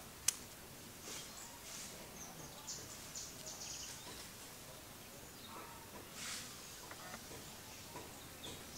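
Faint natural ambience with short high-pitched chirps, mostly in the first half, and one sharp click near the start.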